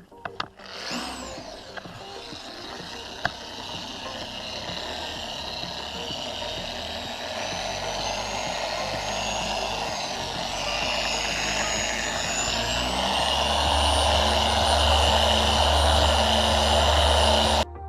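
Electric polishing machine with a pad buffing a plastic headlight lens: the motor spins up, runs with a steady whine, then speeds up with a rising pitch and gets louder, and cuts off suddenly near the end.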